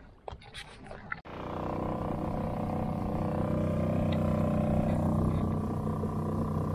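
A few faint clicks and knocks, then about a second in a small Suzuki outboard motor cuts in suddenly, running steadily as the boat moves across the water.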